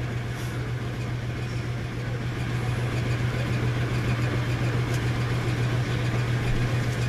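A steady low motor hum with an even hiss over it, unchanging throughout.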